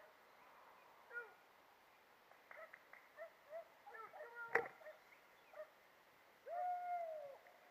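Hunting dogs giving tongue: a series of short, falling yelps and, near the end, one longer drawn-out bay. A single sharp click sounds about halfway through.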